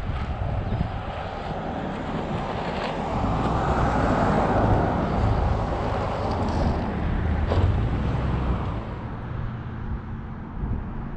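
A car driving slowly, with low engine and road rumble and wind noise on the microphone. The rumble swells a few seconds in and eases off later.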